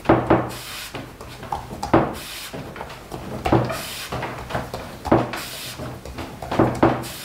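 Long wooden rolling pin, with a sheet of dough rolled up around it, pushed back and forth on a wooden board: a knock and rumble at each stroke, about one every one and a half seconds.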